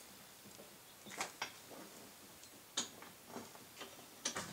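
Scattered light metal clicks and taps as a U-joint bearing cup is fitted between the jaws of a bench vise.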